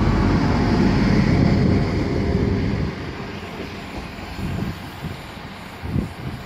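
Arriva Trains Wales Class 175 diesel multiple unit pulling away past the platform, its underfloor diesel engines running loudly. About three seconds in the sound drops and fades as the train moves off, with a few low thumps later on.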